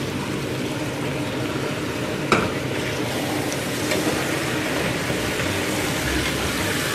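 Raw lamb pieces sizzling in hot oil with onions in a cooking pot, stirred with a wooden spatula; a single sharp knock about two seconds in.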